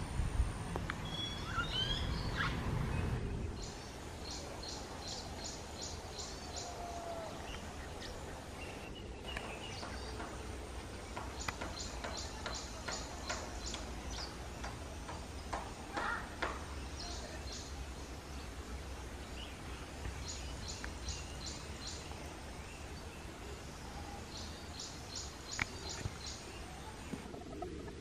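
Wild birds calling: a short run of quick, high, evenly spaced notes, about five or six a second, repeated every few seconds, with scattered single chirps, over a steady low outdoor rumble that is louder for the first three seconds or so.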